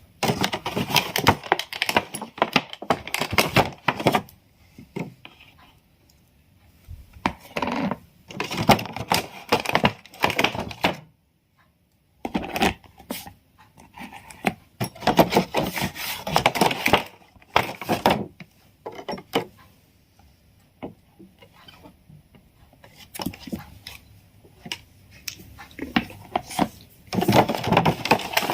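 Crystal slime being worked by hand, making dense clicking and crackling in bursts of a few seconds with short pauses between them.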